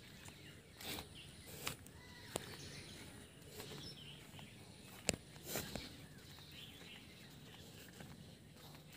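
Footsteps in sandals on a wet, muddy dirt path: a handful of irregular soft steps over quiet outdoor background noise, with faint bird chirps.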